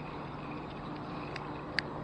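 Steady outdoor background noise, with two brief sharp clicks past the middle.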